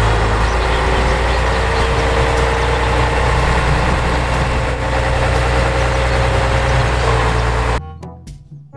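Heavy tow truck's diesel engine idling steadily, with a low rumble and a steady whine over it; the sound cuts off abruptly near the end.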